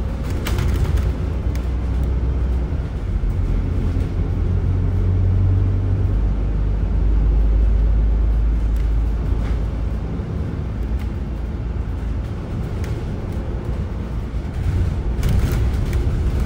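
Interior of an Alexander Dennis DL20 double-decker bus under way: a steady low drivetrain rumble that swells and eases, under the constant hiss of the air conditioning. A few light rattles about half a second in and again near the end.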